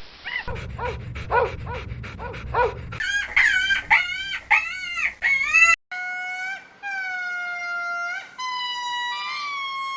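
Animal calls in quick succession. First comes a run of short rising-and-falling cries, about three a second, then fuller arched cries, and from about six seconds in several long, steady, high-pitched cries.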